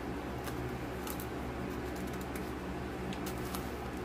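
Steady low background hum with a few faint clicks and rustles as a small cosmetics container and its packaging are handled.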